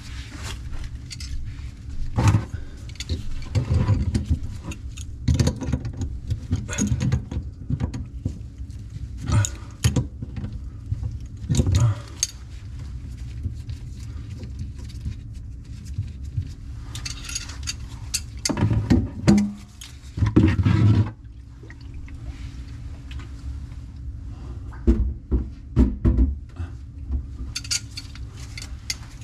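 Plumbing tools and metal faucet parts being handled: irregular clinks, taps and knocks, with louder clusters of clatter, over a steady low hum.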